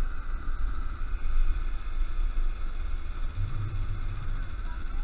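Riding noise on a small motor scooter: wind on the microphone with an uneven low rumble, and the scooter's engine running steadily underneath at cruising speed.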